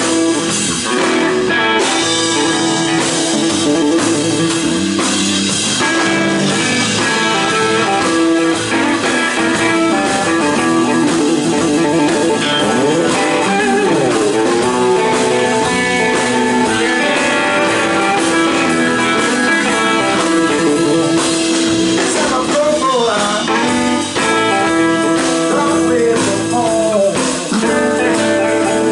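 Live blues played on an electric guitar with a single-cut, Les Paul-style body, backed by a drum kit: an instrumental guitar passage of held notes, with notes bending and sliding in pitch in the second half.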